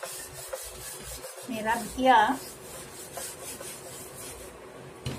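A handheld whiteboard eraser rubbed back and forth over a whiteboard, wiping off marker writing. The rubbing stops shortly before the end.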